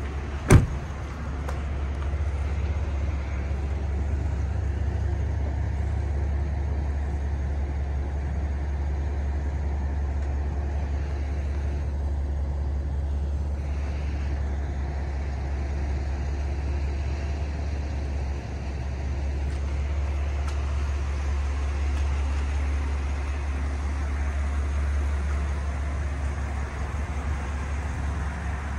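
A car door shuts with one sharp thud about half a second in, then a steady low rumble follows: the Chevrolet Suburban's engine idling.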